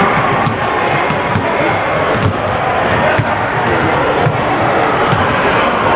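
Basketball bouncing on a hardwood gym floor in irregular knocks, with short high squeaks of sneakers on the court, over steady spectator chatter.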